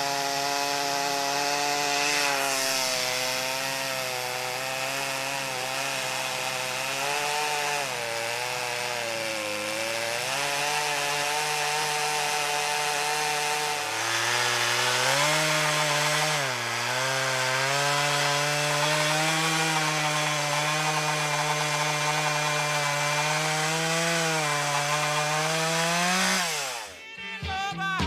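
Chainsaw cutting through an ash log, its engine note dipping and recovering as the chain bogs in the wood, rising about halfway through, then swooping up and dropping away near the end.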